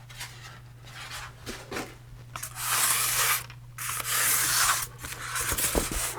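Packaging rustling and rubbing as a small printer/plotter is handled, in two longer bouts of about a second each near the middle, with shorter scrapes around them.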